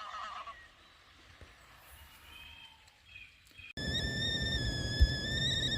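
Faint outdoor quiet, then about two thirds of the way in, a kettle starts whistling: one steady, slightly wavering high whistle over a steady hiss.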